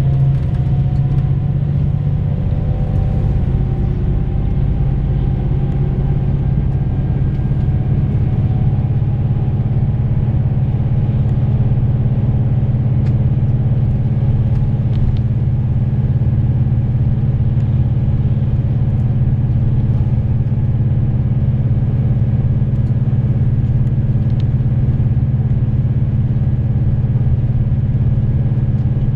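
A bus's engine running with road rumble, heard from inside the cabin as a steady, loud hum. In the first few seconds, a faint whine slides down in pitch.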